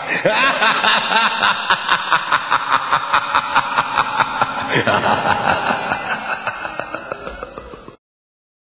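Closing bars of a pop song: a drawn-out evil laugh over a pulsing synth beat, fading out and then cutting off to silence about eight seconds in.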